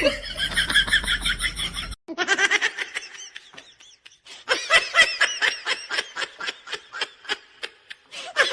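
Laughter: quick, repeated high-pitched ha-ha bursts, several a second, broken by a cut about two seconds in and a short lull before they resume.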